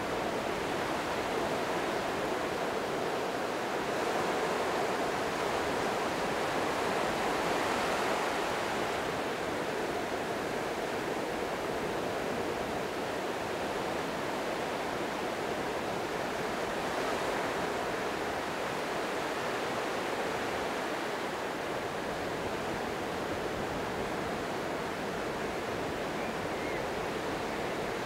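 Small wind-driven waves breaking and washing up a sandy beach in a steady hiss of surf. The surf swells a little from about four seconds in and again just past the middle.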